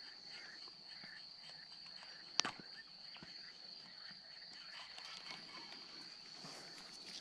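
Faint natural ambience: a steady high-pitched insect drone, with one sharp click about two and a half seconds in.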